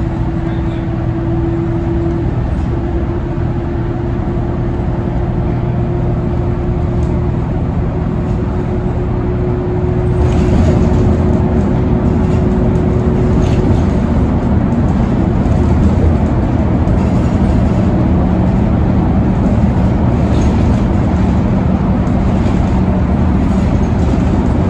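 A New Flyer XDE60 articulated hybrid bus underway, heard from inside the passenger cabin: the Cummins ISL9 diesel and Allison hybrid drive make a steady drone with a faint whine. The drone grows louder about ten seconds in.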